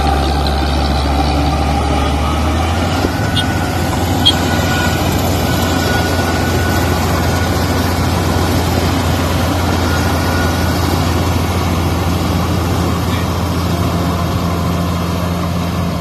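Mahindra tracked combine harvester running under load: a steady, loud engine drone with a faint whine on top. The low note shifts about three seconds in.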